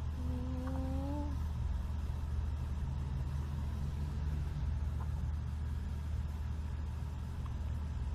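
Steady low background hum, with a brief, slightly rising tone lasting about a second near the start.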